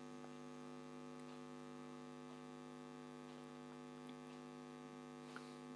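Faint steady electrical hum, with a faint tap near the end.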